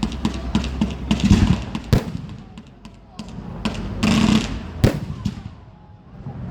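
Fireworks bursting in the sky: several deep booms and sharp bangs, the clearest about a second and a half, two, four and five seconds in, with crackling between them.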